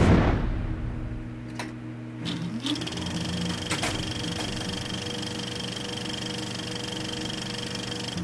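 A whoosh, then a few sharp clicks as an old film projector starts, then the projector running with a steady mechanical whir and a thin high whine.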